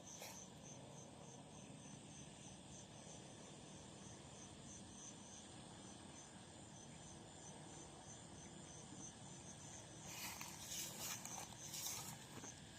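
An insect chirping faintly in a steady rhythm of short, high pulses, about two to three a second. About ten seconds in, a louder rustling comes in for a couple of seconds.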